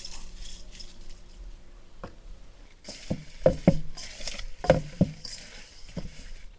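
Gloved hand tossing whole potatoes in an oily spice marinade in a stainless steel bowl: wet squishing and the potatoes knocking against the bowl, with several louder squelches between about three and five seconds in.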